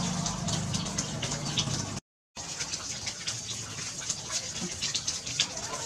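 Knife scraping the wet seeds and pulp out of a melon half, with small scattered clicks; the sound cuts out completely for a moment about two seconds in.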